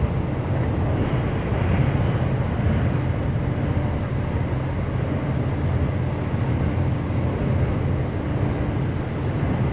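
Double-stack container train rolling steadily across a trestle bridge, a continuous low rumble of wheels on rail.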